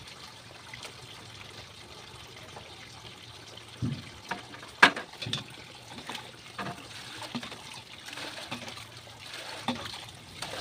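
Water trickling from a hose into a steel basin. From about four seconds in, a dipper scoops and knocks against the basin, with several sharp clunks, the loudest about five seconds in, and a few lighter ones after.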